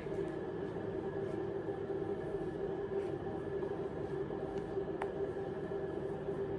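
Steady machine hum with a few constant tones, and a faint click about five seconds in.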